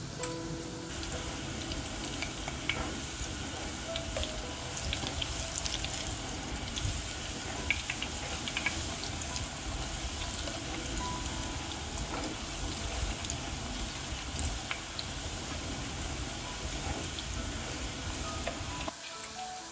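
Thin raw sweet potato slices deep-frying in hot oil in a stainless steel pot, a steady sizzle with scattered crackles and pops as they are stirred with chopsticks. A low hum underneath cuts out near the end.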